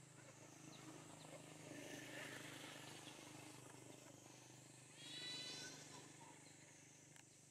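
Faint outdoor ambience with a low steady hum. About five seconds in, one short high-pitched call, under a second long.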